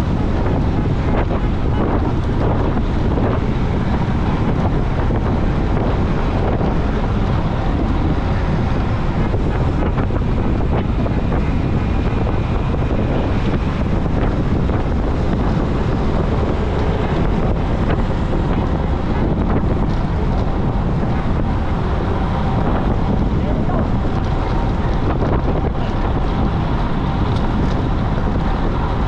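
Steady wind buffeting the microphone of a bike-mounted camera moving at riding speed.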